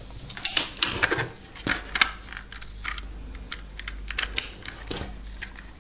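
Irregular light clicks and taps of a plastic telephone handset being handled, its casing held together in the hands.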